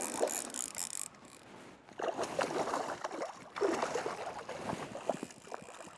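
A hooked brook trout splashing and thrashing at the river's surface as it is played on a fly rod. The splashing comes in surges, about two seconds in and again a second and a half later.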